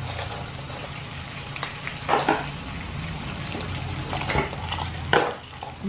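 Sizzling in an aluminium wok as live mud crabs and tiger prawns cook, over a low steady hum. A few sharp clacks, the loudest about four and five seconds in, as metal tongs handle the crabs in the pan.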